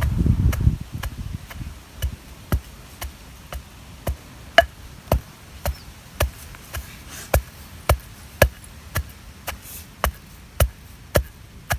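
A pestle pounding roasted black sesame seeds with dry chillies, tamarind and garlic in an ural (traditional mortar), striking in a steady rhythm of about two knocks a second.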